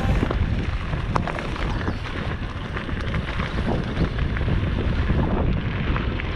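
Wind buffeting the microphone while riding an electric bike, a rough rushing noise strongest in the low end with a few faint clicks.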